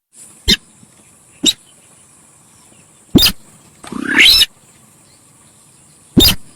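Lure recording of a sintar sawah, a paddy-field bird, giving short, loud, harsh calls: single calls about half a second and a second and a half in, another just past three seconds, a longer call with a rising sweep around four seconds, and one more near the end. A steady high hiss runs underneath.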